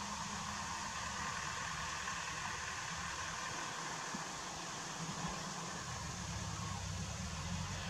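Distant farm tractor engine running as it pulls a round baler, under a steady hiss. Its low engine note fades for a couple of seconds in the middle and comes back stronger about six seconds in.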